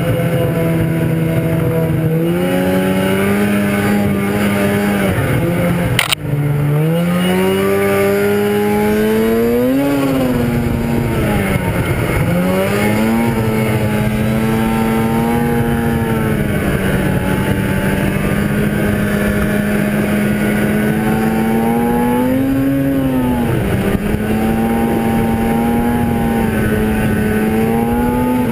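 1997 Arctic Cat ZR 440 snowmobile's two-stroke twin engine running under way, its revs rising and falling repeatedly with the throttle. There is one sharp click about six seconds in.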